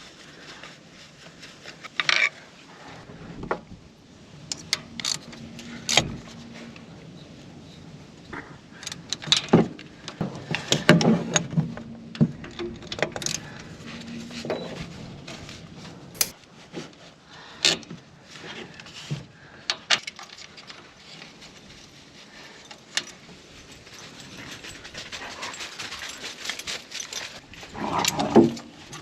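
Irregular clinks, clicks and knocks of hand tools and metal parts, heard one at a time and in short clusters, during work fitting a starter to an engine.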